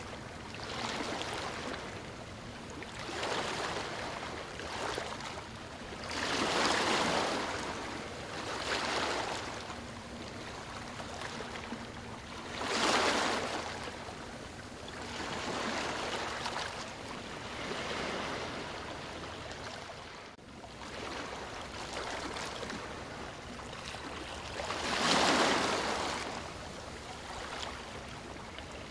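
Ocean surf washing in: a hiss that swells and fades every few seconds, with three bigger waves breaking, and a faint steady low hum beneath.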